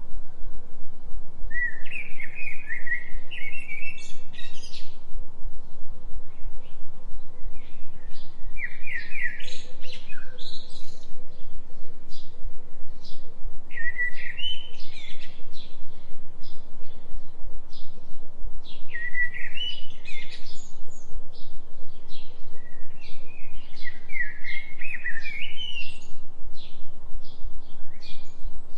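A songbird repeating a short warbling phrase of rising chirps about every five seconds, over a steady low drone: the synthetic binaural-beat tone that runs under the forest sounds.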